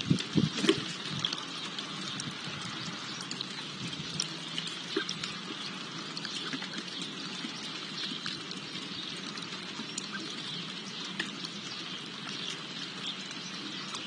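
Birds pecking and rummaging in seed in a wooden feeding tray: scattered light ticks and rustles, with a few louder knocks in the first second, over a steady background hiss.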